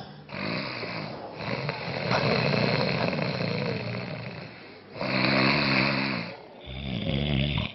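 A man snoring loudly in his sleep: one long rasping snore lasting about four seconds, then two shorter snores with a buzzing, pitched rattle.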